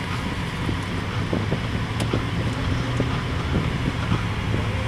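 Inside the cabin of a 1997 BMW 740iL while driving: a steady hum of its 4.4-litre M62 V8 and road noise, with a few faint clicks.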